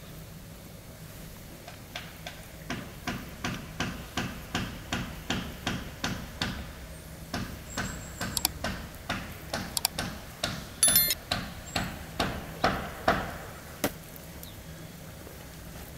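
Chopping on a cutting board: steady, even knocks about three a second, starting about two seconds in and stopping near the end, with one sharper, ringing clack about eleven seconds in.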